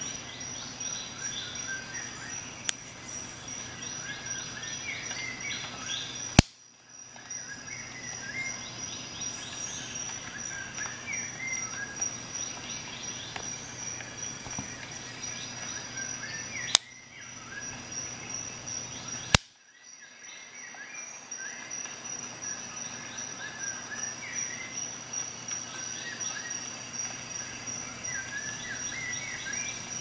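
Steady high cricket-like insect trill with scattered bird chirps. A few sharp clicks cut in, the loudest about six, seventeen and nineteen seconds in, each followed by a brief dip in the background.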